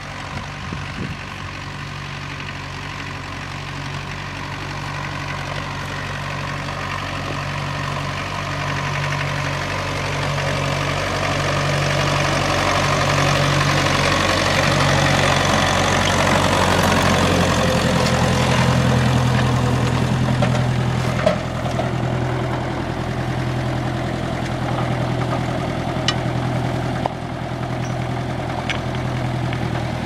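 Massey Ferguson 35 tractor engine running steadily while pulling a plough. It grows louder as the tractor comes up and passes close by, then eases slightly.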